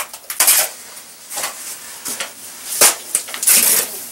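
Steel trowel scraping cement plaster off a hawk and working it onto a cellar wall: several short metal-on-mortar scrapes, a sharp click about three seconds in, and a longer scrape near the end.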